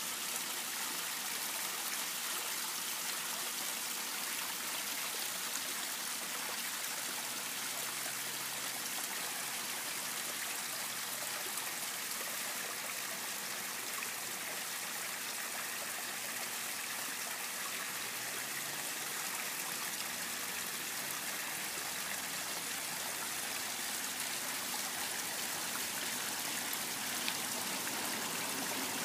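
Small garden rock waterfall splashing and trickling steadily into a koi pond.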